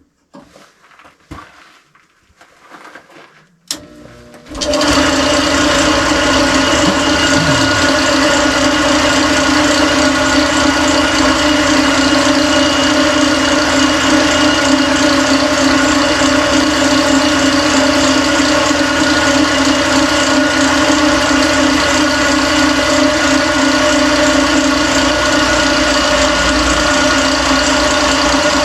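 A few faint handling noises, a click, then a benchtop drill press starts about four and a half seconds in and runs at an even, steady hum while drilling the pin hole through the steel tong stock.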